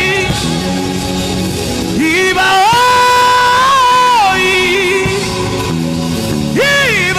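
Worship music: a solo voice sings long, held notes that glide between pitches over a steady instrumental backing, with a high held note in the middle and a new phrase starting near the end.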